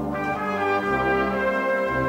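Brass band playing, with sustained chords over low bass notes; a fresh chord comes in right at the start after a brief dip.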